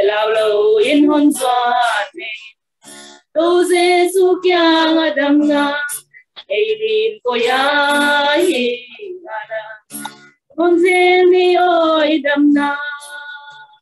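Two women singing a hymn together without accompaniment, in long held phrases with short breaks between them.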